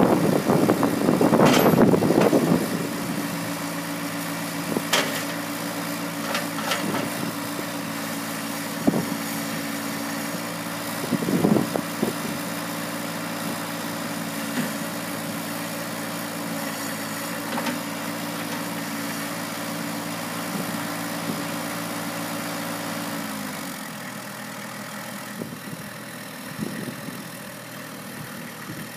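2018 Massey Ferguson 1526 compact tractor's three-cylinder diesel engine running steadily as the tractor drives slowly. Wind buffets the microphone in the first couple of seconds, a few light knocks come through in the middle, and the engine note drops and quietens about 23 seconds in.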